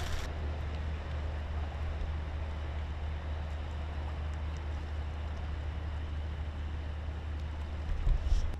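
Steady outdoor riverside ambience: a constant low rumble under an even hiss, with a brief louder low gust or bump near the end.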